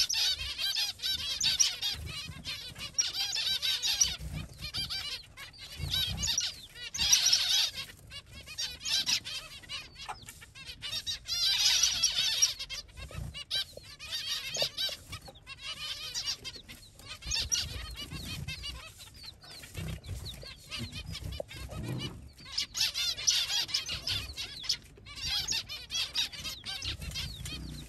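Baby chicks peeping: many rapid, high-pitched cheeps that swell into louder spells and ease off again throughout.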